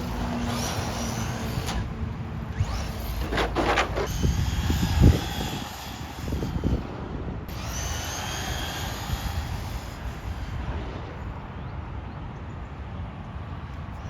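Brushless electric RC car driving, its motor whine rising in pitch as it accelerates, with one heavy thump about five seconds in.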